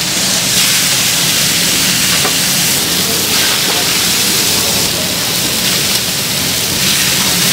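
Steady, loud sizzling and hissing of food frying on a hot griddle, with a low steady hum underneath.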